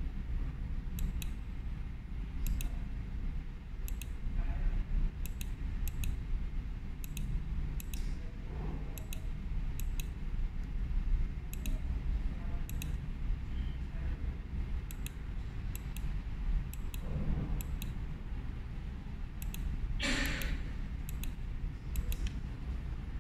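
Computer mouse button clicking repeatedly, roughly once a second, each click a quick double tick, over a steady low hum. A short breathy rush of noise comes near the end.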